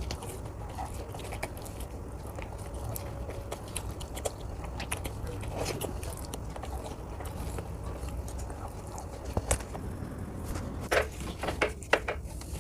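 A person chewing and biting food close to the microphone, with small wet mouth clicks and a few sharper clicks near the end.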